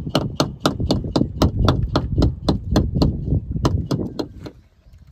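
Rapid, steady knocking, about four knocks a second, struck to wake the fish and draw them up; it stops near the end.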